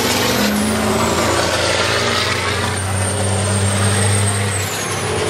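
Diesel semi-truck tractors racing on a short oval track, their engines running loud and steady, with a high whistle that drops in pitch about half a second in and again near the end.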